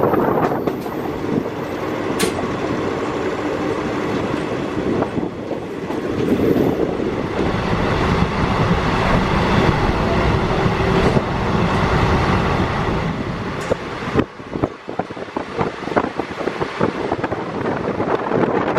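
Passenger express train running at speed, heard from the coach's doorway: a steady rumble of wheels on rails mixed with rushing air. About fourteen seconds in it gives way to the quieter, uneven bustle of a station platform.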